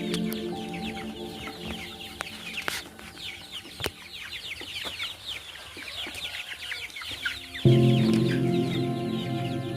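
A flock of broiler chicks cheeping continuously, many short falling peeps overlapping, under background music whose chords fade and then come back loudly near the end.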